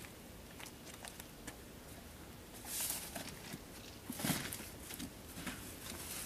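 Scattered light clicks and rustles, then a thump about four seconds in as a cardboard box is pushed into a small plane's baggage door.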